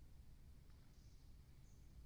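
Near silence: a steady low rumble from the outdoor nest-cam microphone, with two faint, short, high bird chirps, one about a second in and one near the end.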